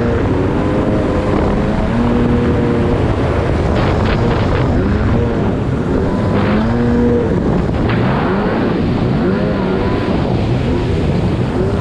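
Yamaha GP800R jet ski's two-stroke twin-cylinder engine running under way, its pitch rising and falling again and again as the throttle is worked.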